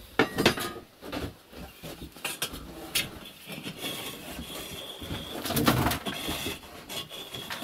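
Metal poker scraping and knocking inside a brick stove's flue opening, raking out packed soot; the flue is clogged to the top. Irregular scrapes and clanks, the loudest about half a second, three seconds and six seconds in.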